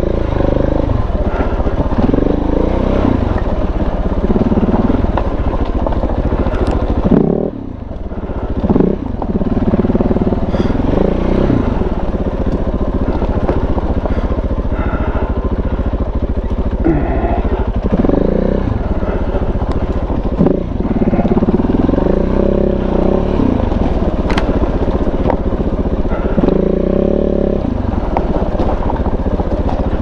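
KTM 690's big-bore single-cylinder engine revving up and down over and over at low speed on a rough off-road climb, the throttle opening and closing in short blips. The engine note drops sharply for a moment about seven seconds in.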